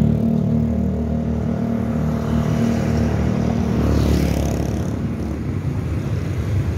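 Road traffic of motor scooters and cars, engines running steadily. About four seconds in, one vehicle passes close, its engine and tyre noise swelling and then fading.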